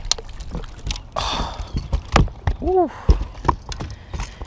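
A hooked bass splashing briefly at the surface about a second in as it is played to the boat and lifted out, with scattered knocks and thumps on the boat deck.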